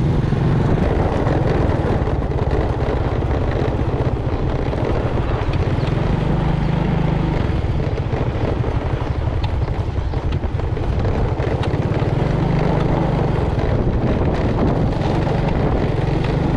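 Motorcycle engine running steadily while riding, heard from a camera mounted on the bike, with wind and road noise.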